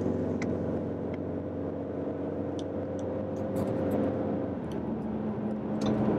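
Inside the cabin of a 2015 Ford Mustang EcoBoost at highway speed: the 2.3-litre turbocharged four-cylinder hums steadily under tyre and road noise, with a few faint ticks.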